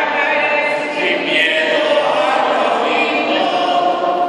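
A group of voices singing a hymn together in a large church, in slow, long-held notes.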